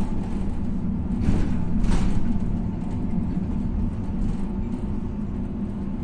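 Setra bus driving along, heard from inside the passenger cabin: a steady low diesel engine drone with road noise, and a brief louder stretch of noise about one to two seconds in.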